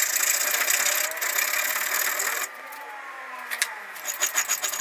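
Hand file rasping on a steel hook clamped in a vise: continuous flat-file strokes for the first half. After a brief quieter gap, round-file strokes start again near the end, worked through the hook's eye.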